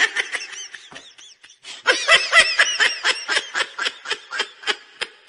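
A person laughing: a quick run of short, high-pitched snickers that pauses briefly, comes back loudest, and tails off.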